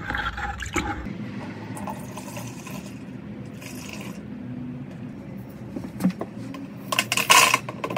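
Thick Evapo-Rust rust-remover liquid being poured from a plastic bucket into a plastic tub: a steady pouring and splashing into plastic. A brief louder burst of noise comes near the end.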